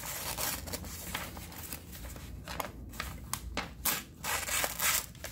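Freshly sharpened bypass lopping shears snipping into a sheet of typing paper: several irregular short snips and paper rustles, the paper partly cutting cleanly and partly tearing.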